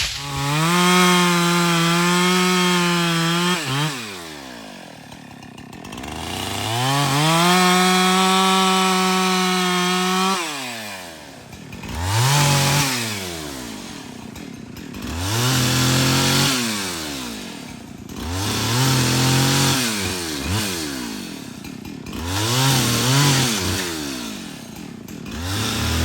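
Husqvarna 372XP two-stroke chainsaw revving: held at full throttle for about four seconds twice, then four shorter rev-ups. Each one drops back toward idle before the next.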